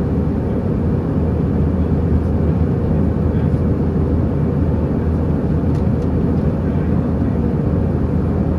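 Steady drone of jet engine and airflow noise inside an Airbus A320 cabin in flight, low and even, with a steady low hum under it.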